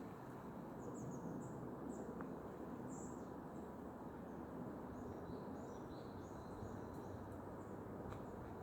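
Small birds giving short, high chirps, scattered and faint, over a steady low outdoor background rush.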